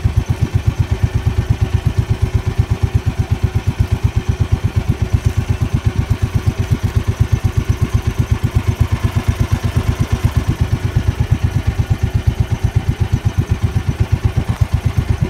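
Small engine of an outrigger bangka running steadily while the boat trolls, an even rapid chugging of about eight beats a second.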